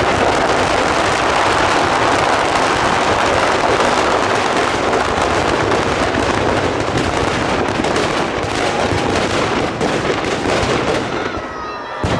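Firecrackers packed inside a burning effigy going off in a loud, continuous, rapid crackling barrage. It thins out near the end.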